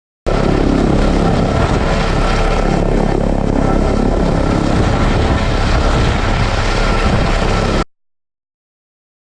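Helicopter running loud and steady, its turbine and rotor noise dominated by a heavy low rumble with a faint steady whine above; it cuts in suddenly and stops abruptly after about seven and a half seconds.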